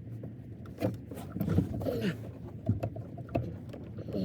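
Jubilee hose clip being tightened on a heater hose: scattered clicks and knocks of the tool on the clip, with a brief creaking squeal around the middle, over a steady low hum.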